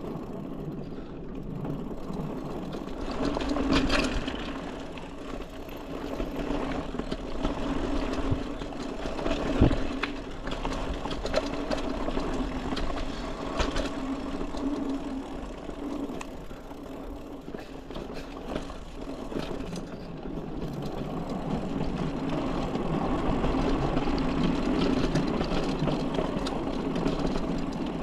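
Mountain bike rolling along trail and wooden boardwalk: a steady hum and rattle from the tyres and bike that swells and fades with speed, with sharp knocks from bumps about 4 and 10 seconds in.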